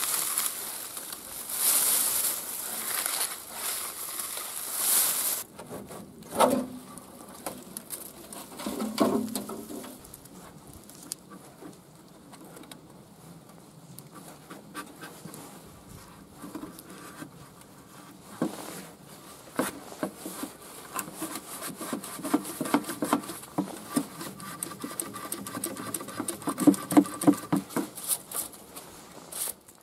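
A plastic bag and dry leaf litter rustling as debris is scooped up by hand, loud for the first five seconds or so. Then come quieter crinkles and scattered clicks and taps as debris is picked off the old tractor's engine, growing busier near the end.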